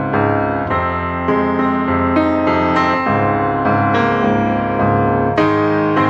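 Background piano music: a gentle run of notes and chords, a new note or chord about every half second to a second.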